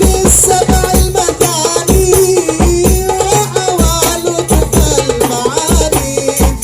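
Hadroh ensemble of Indonesian frame drums playing a busy rhythmic pattern, deep bass-drum strokes under quick sharp hand strikes, with a melody running above it.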